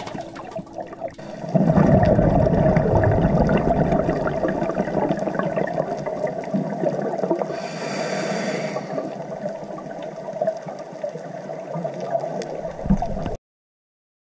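Scuba diver breathing through a regulator, heard underwater: crackling, gurgling bubbles of exhaled air, with one hissing inhale about eight seconds in. It cuts off suddenly near the end.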